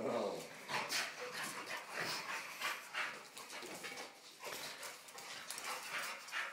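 An American Bulldog puppy and a blue pit bull play-fighting on a tile floor, making a run of irregular scuffles and clicks, with the dogs panting.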